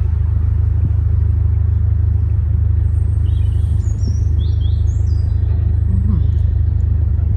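Narrowboat diesel engine running steadily at cruising pace, a loud low throb. A few small birds chirp briefly over it in the middle.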